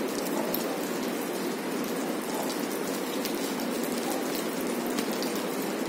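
Melted butter sizzling steadily in a frying pan over a low gas flame.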